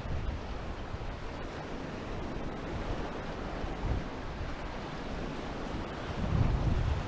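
Ocean surf washing on the shore with wind buffeting the microphone, a steady rushing noise with a low rumble that swells about six seconds in.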